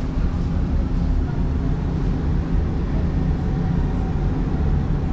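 Dubai Tram, an Alstom Citadis, running between stations, heard from inside the car as a steady low rumble with a faint steady hum.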